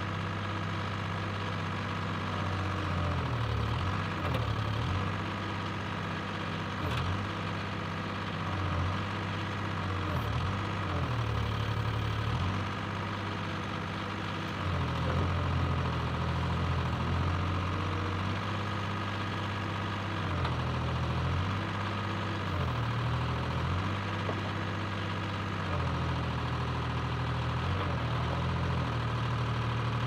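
Dynahoe 160 backhoe engine running steadily, its pitch sagging and recovering every few seconds as the hydraulic boom and bucket are worked to dig.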